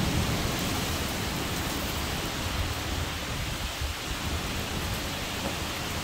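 Steady rush of heavy thunderstorm rain and straight-line wind, with a low rumble easing off in the first moment.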